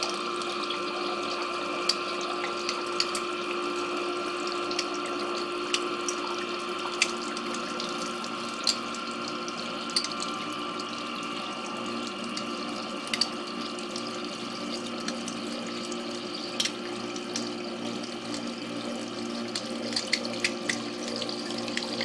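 Submersible backup sump pump running with a steady hum amid trickling, splashing water and scattered drip-like ticks. It is hesitating, running without yet pumping, because the water in the crock has dropped below its inlet.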